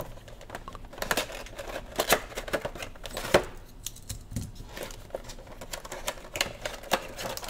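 Cardboard action-figure box being handled and opened by hand: a busy run of clicks, taps and rustles of card and packaging starting about a second in.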